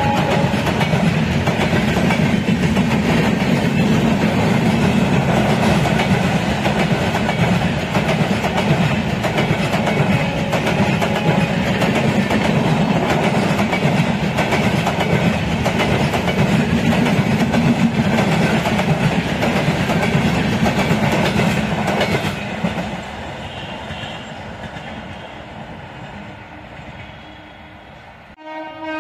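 LHB passenger coaches of a superfast express passing at speed, a loud steady running noise of wheels on the rails. After about 22 seconds the last coaches go by and the sound fades away. Right at the end a train horn starts suddenly.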